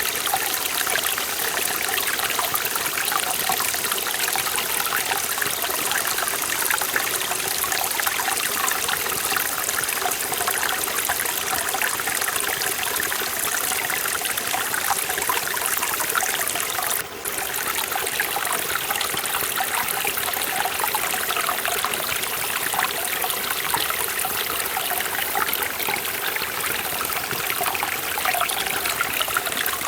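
Forest valley stream flowing: a steady rush and trickle of water. The sound drops out for a split second about seventeen seconds in.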